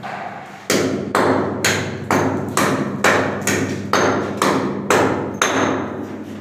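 Hammer striking a concrete wall in a steady series of about eleven sharp blows, roughly two a second, starting under a second in, some with a brief metallic ring. The wall is being struck to find a concealed electrical junction box by the change in sound.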